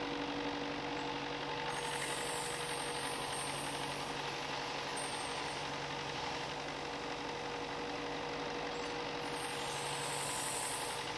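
Ryobi benchtop belt-and-disc sander motor running with a steady hum, as small wooden gussets are pressed to the moving sanding belt to bevel their edges. The hiss of sanding comes twice: for about three seconds starting two seconds in, and again near the end.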